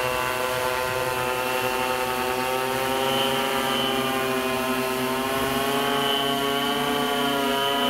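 Y6 multirotor drone's six electric motors and coaxial propellers buzzing in flight: a steady whine of several tones that drifts slightly in pitch as the motors adjust.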